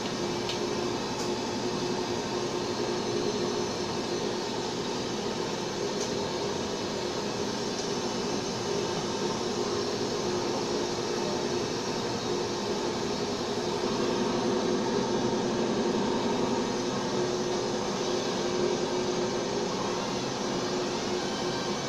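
Steady machine hum and hiss, growing a little louder for a few seconds past the middle.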